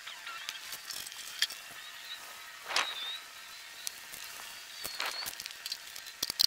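Outdoor yard ambience: a steady high hiss with a few short, thin chirps, scattered light clicks, and a brief scrape about three seconds in.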